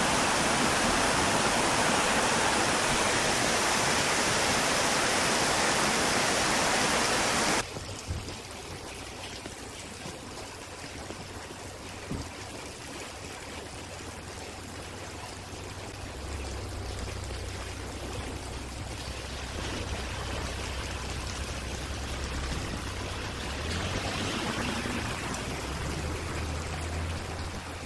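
Heavy tropical rain pouring down in a steady loud hiss, cut off abruptly about eight seconds in. What follows is a much quieter wet outdoor hush with a low steady hum coming in about halfway through.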